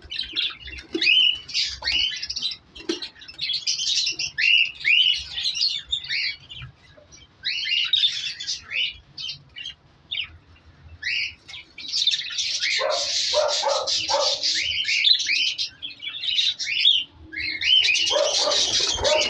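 Budgerigars chirping and chattering: many short rising chirps, with denser, harsher bursts of chatter about two-thirds of the way through and again near the end.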